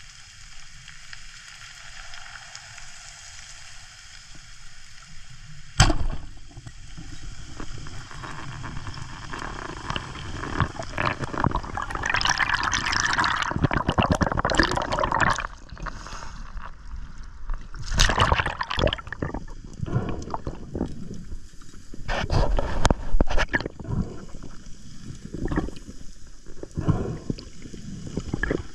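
Heard underwater: a speargun fires with one sharp crack about six seconds in, followed by a long stretch of water rushing, splashing and bubbling, with louder splashes later on.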